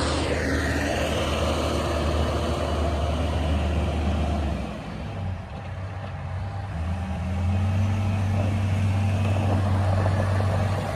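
A vehicle engine running with a steady low drone. About halfway through it eases off briefly, then settles at a higher steady pitch, with a short falling whine in the first second.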